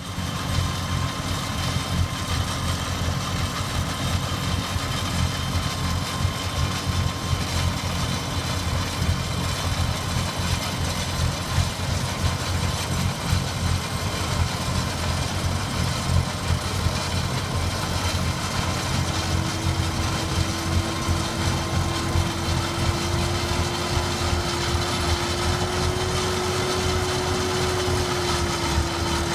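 A 160 hp Fendt Vario tractor runs steadily under load, driving a PTO-powered Trejon Optimal 2650HD snow blower through very heavy snow, with a deep, even machine rumble. About two-thirds of the way through, a steady hum comes in and rises slightly in pitch.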